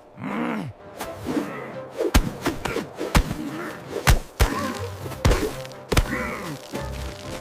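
A series of about six sharp thuds and impact hits, roughly a second apart, over background music.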